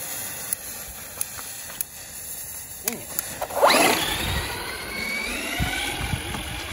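A lit smoke-bomb fuse hisses and crackles. About three and a half seconds in, the Traxxas Rustler 4x4 VXL's brushless electric motor whines sharply up in pitch as the RC car accelerates away, then holds a high whine over the rumble of its tyres on wet pavement.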